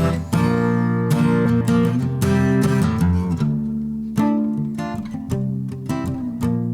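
Music with no singing: the song's instrumental passage after the last sung line, carried by strummed acoustic guitar chords with repeated strokes.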